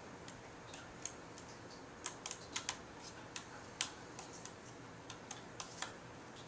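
Small screwdriver working a tiny screw inside a MacBook Pro's aluminum battery bay: light, irregular clicks and ticks of the tool and screw against the case, coming more often from about two seconds in.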